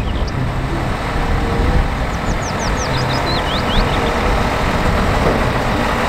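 Diesel engine of a three-axle tipper truck running steadily while its dump body is raised.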